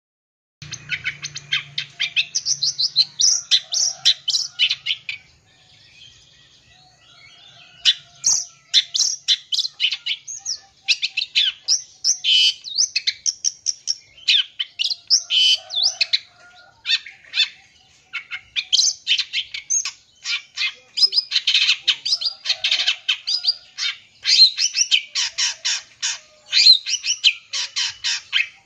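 Long-tailed shrike (cendet) singing a fast, dense "full isian" song packed with imitated calls of other birds: rapid chirps and trills. The song starts about half a second in, eases off about five seconds in, and resumes near-continuously about three seconds later.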